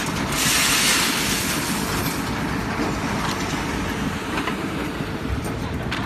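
Engine of a trailer concrete mixer pump running steadily under load while it pumps concrete, with a loud hiss in the first two seconds and a few faint knocks after it.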